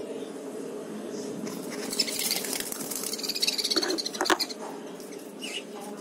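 A flock of budgerigars chattering and chirping in an aviary, with a busier stretch of high, squeaky chirps and a few sharp clicks from about two seconds in to about four and a half seconds.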